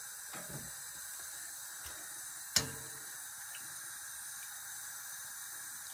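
Faint steady hiss of a large stainless steel dye pot of water heating on a gas stove, with one sharp clink of metal tongs against the pot about two and a half seconds in.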